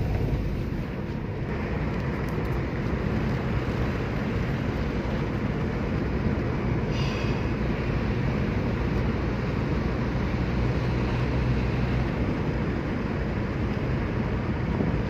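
Steady road and engine noise heard from inside a moving car's cabin: a continuous low rumble of tyres and engine at cruising speed.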